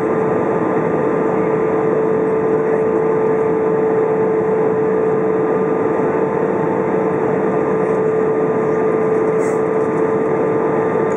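Cabin noise inside an Airbus A319 in flight: the steady rush of the engines and airflow, with a constant droning tone on top.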